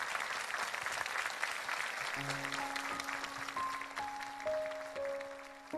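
Audience applauding, thinning out as a keyboard begins a slow song intro about two seconds in: a held low note under single notes that step up and then back down, with a fuller chord near the end.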